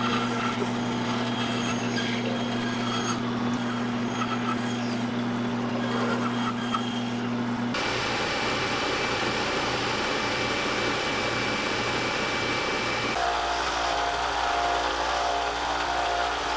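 Band saw running and cutting through a wooden crankbait blank. About 8 s in the sound switches abruptly to a different power tool with a steady high whine, and it changes again about 13 s in.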